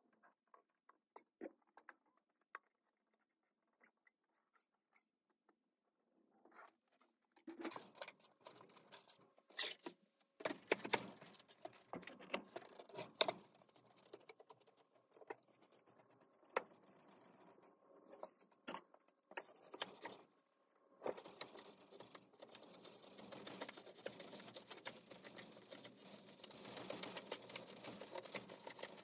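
A hand tool worked along the edge of a wooden board: faint scattered clicks at first, then knocks and scraping strokes, turning to a continuous rasping over the last eight seconds or so.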